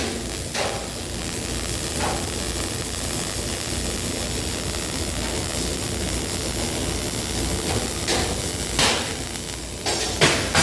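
A few sharp knocks, like hammer blows, over a steady hiss; the knocks come about half a second in, about two seconds in, and twice near the end.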